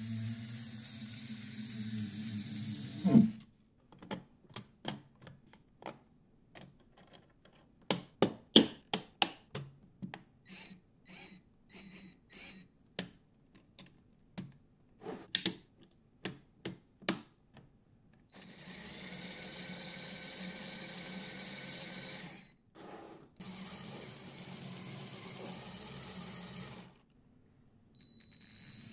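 A Lego Technic car's electric motor and gear drivetrain whirring steadily, ending in a sharp knock about three seconds in. Then a run of sharp plastic clicks as Technic gears and parts are fitted by hand, and the motor whirring again in two stretches of about four seconds each near the end.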